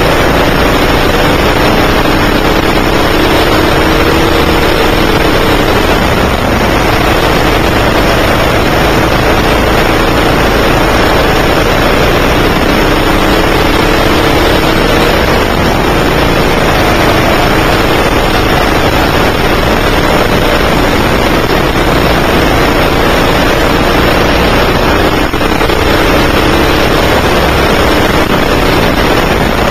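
A 9 hp go-kart engine heard from the driver's seat, its pitch rising and falling several times as the throttle is worked through the corners, under a constant loud rush of noise.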